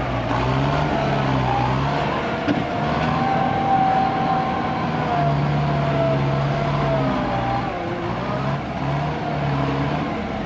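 Heavy diesel engines of ten-wheel dump trucks running, with the engine note and a higher whine rising and falling as one truck pulls to free the other from the mud.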